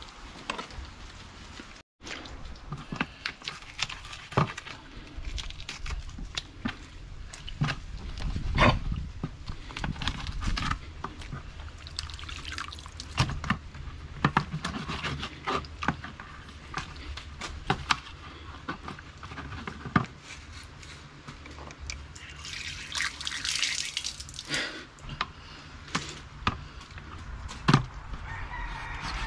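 Cleaning and cutting up barracuda: irregular knocks and taps of knife work, with water dripping and splashing over the fish. There is a longer rush of poured or running water about 23 seconds in.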